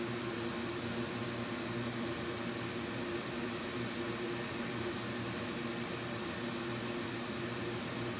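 Hot air rework station blowing a steady hiss of hot air with a low hum beneath it, heating the motherboard to lift off a shorted MOSFET.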